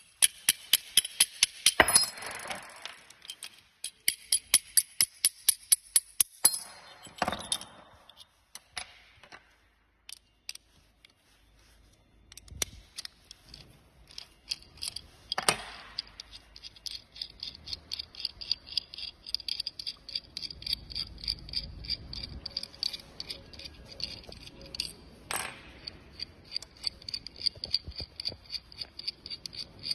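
Metal hand tools clicking on the pedal's fasteners: runs of rapid, even ticks like a ratchet being worked, with a few louder knocks of metal on metal.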